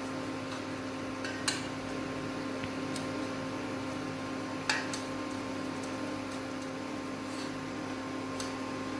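A steady background hum, with a few light clicks on steel as semolina dough balls are set into a stainless-steel perforated strainer; the sharpest come about a second and a half in and just before five seconds in.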